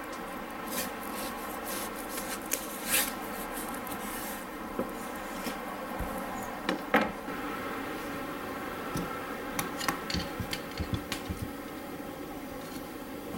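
A kitchen knife cutting a netted melon on a wooden cutting board: scattered knocks of the blade and melon against the board, the loudest about seven seconds in. Near the end comes a quick run of light taps as the pieces are cut and set down.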